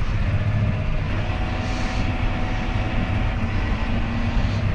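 John Deere 6215R tractor's six-cylinder diesel engine running steadily as the tractor drives forward, heard from inside the cab as a low, even drone with a faint steady whine above it.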